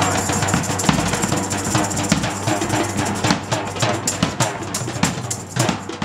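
Live group drumming: a large drum carried by a standing player and hand drums played by a seated circle, struck in a fast, dense rhythm that thins into more separate strikes after about three seconds.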